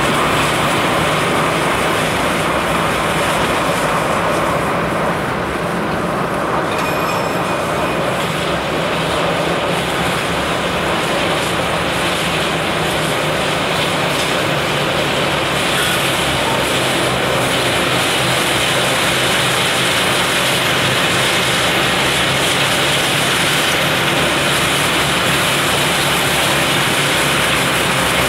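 Rhaetian Railway rotary snow blower Xrotmt 95403 working on the track, its engine and rotor running steadily as it cuts through snow and throws it aside.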